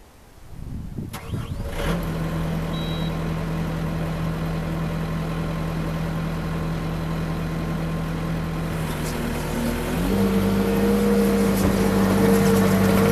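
Kubota SVL75 compact track loader's four-cylinder diesel engine starting up and settling into a steady idle. About ten seconds in it is throttled up to a higher, louder engine speed.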